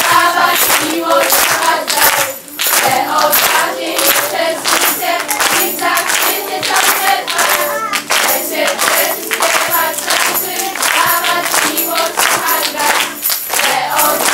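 A group of young performers, mostly girls' voices, singing together while clapping their hands in a steady rhythm.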